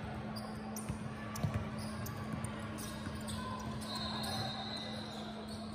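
Basketball bouncing on the court, with scattered thuds, the sharpest about a second and a half in, over a steady low hum.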